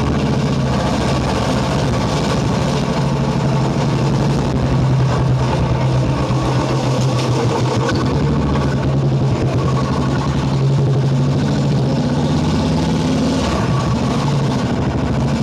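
Motorcycle engine running as it is ridden, a steady engine note that rises and dips a little with the throttle.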